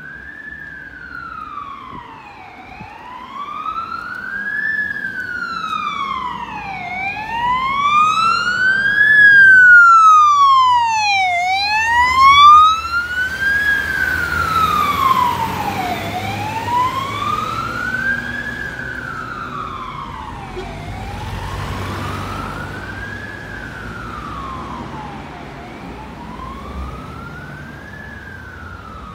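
Fire engine siren of a MAN TGM 18.320 fire truck wailing, a slow rise and fall about every four and a half seconds. It grows louder as the truck approaches and is loudest as it passes about a third of the way in, with the truck's engine rumbling. It then fades as the truck drives away.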